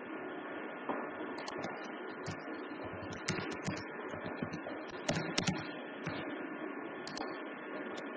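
Irregular clicks of a computer keyboard and mouse, a few at a time, over a steady background hiss.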